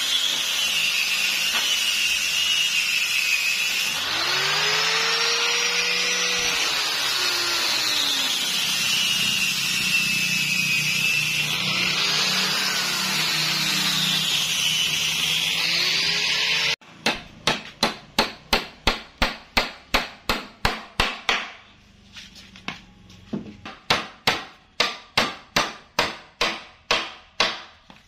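A power tool running with a whine that wavers up and down in pitch, then, after a sudden cut about two-thirds of the way through, a hammer striking over and over, about two to three blows a second, with a short pause in the middle.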